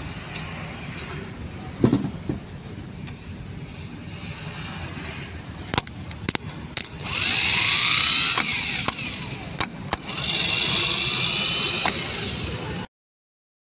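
Starter motor bench-tested by touching a battery cable to its solenoid terminal. There are a few sharp clicks, then twice the motor spins up free with a whine that rises and falls in pitch, each run lasting about two seconds.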